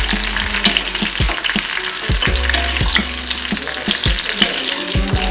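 Raisins sizzling in hot oil in a kadai, a steady dense crackle. They have puffed up and are done, and a spoon lifts them out with soft knocks against the pan.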